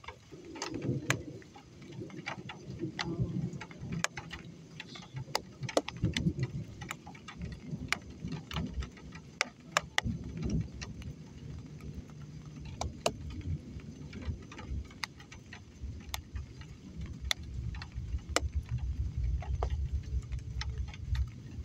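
Raindrops ticking sharply and irregularly on a hard surface close to the microphone, over a low, uneven rumble.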